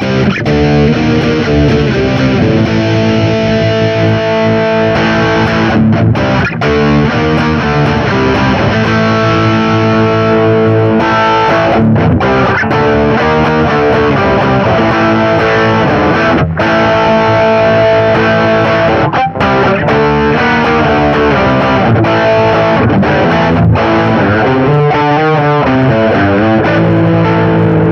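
Electric guitar played through a Marshall GV-2 Guvnor Plus overdrive/distortion pedal, with the pedal's mid control being demonstrated. It plays distorted, sustained notes and chords, with several brief breaks between phrases.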